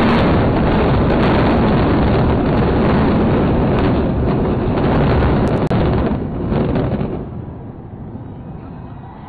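Controlled explosive demolition of the Supertech twin towers: a loud, sustained rumbling roar of the charges and the collapsing concrete high-rise, dying down about seven seconds in.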